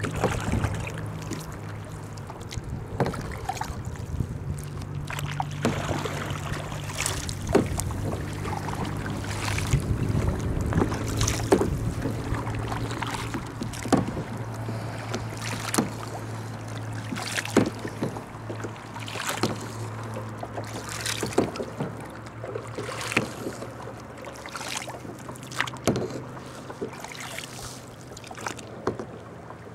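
Kayak paddling: a double-bladed paddle dipping into lake water and splashing, with water dripping off the blades, a stroke about every two seconds at an easy pace, over a steady low hum.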